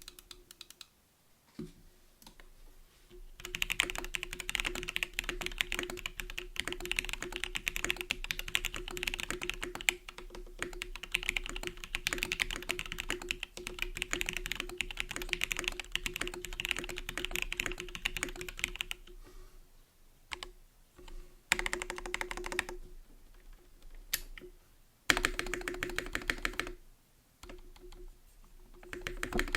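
Linworks Triple A custom mechanical keyboard with lubed Gateron Blizzard tactile switches being typed on. A fast, continuous run of keystrokes starts a few seconds in, and after a pause comes a few shorter bursts of typing.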